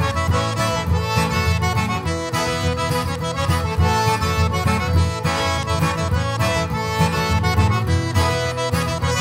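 Cajun band music led by a Cajun diatonic button accordion, with a strong bass and a steady dance beat.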